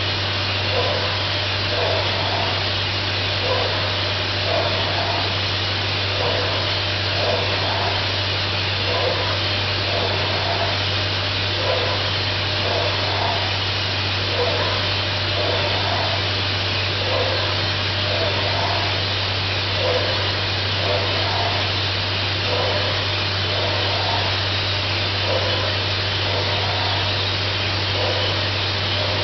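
Thermal spray gun running steadily with a loud, even hiss as it sprays coating into the bore of a turning vacuum-pump housing. A low steady hum lies underneath, and a short squeak-like tone repeats about once a second.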